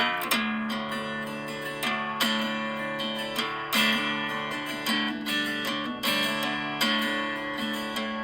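Background music: strummed acoustic guitar chords at an easy, even pace.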